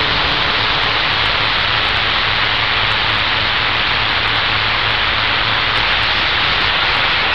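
Steady static hiss from a CB radio receiver, with a faint low hum underneath, while no one is transmitting clearly on the channel.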